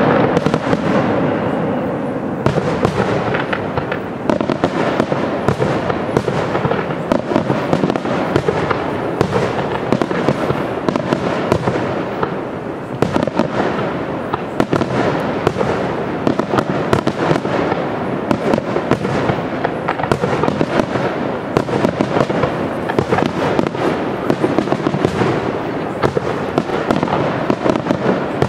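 Aerial fireworks display: a dense, unbroken volley of shell bursts, many sharp bangs a second overlapping with their echoes.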